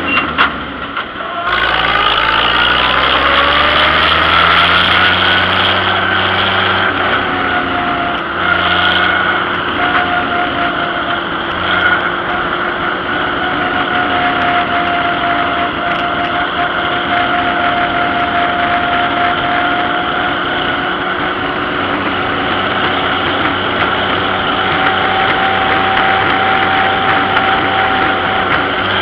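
Vintage tractor engine running as the tractor travels along the road. Its pitch rises for the first several seconds as it picks up speed, then holds steady.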